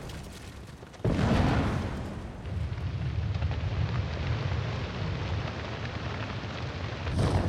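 Volcanic eruption with lava fountaining: a sudden blast about a second in, then a steady low rumble under a rushing hiss, and another blast just before the end.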